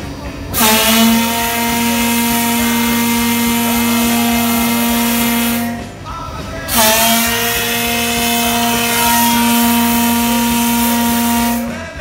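Steam whistle on the Middleport Pottery steam engine blowing two long blasts of about five seconds each, with a short break about six seconds in. Each blast is one steady note over a rush of escaping steam.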